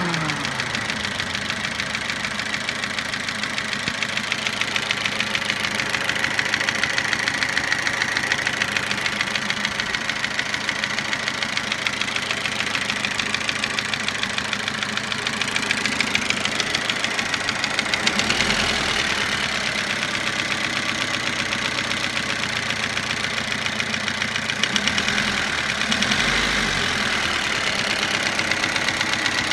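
Toyota Avensis petrol or diesel engine running near idle with a fast, steady knock, briefly picking up twice. The knock appeared after the engine was rebuilt with sleeved cylinders, new piston rings and a new timing belt.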